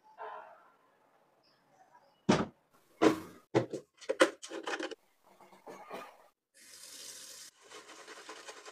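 Hand-washing clothes at a bathroom sink: a few sharp knocks and clicks as a plastic detergent bottle is handled and poured, then a rush of water and wet fabric being rubbed in soapsuds near the end.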